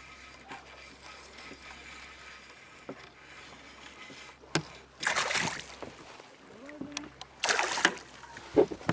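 A hooked fish thrashing at the surface beside a kayak, throwing two loud splashes about five and seven and a half seconds in, after a quiet start.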